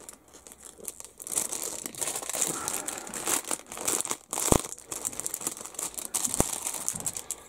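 Thin clear plastic bag crinkling and rustling as a plastic model-kit sprue is handled in it, with two sharp knocks about halfway through and near the end.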